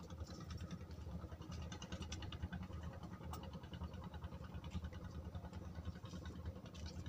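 Low, unsteady rumble of wind buffeting the microphone, with faint ticking of small water movement over it.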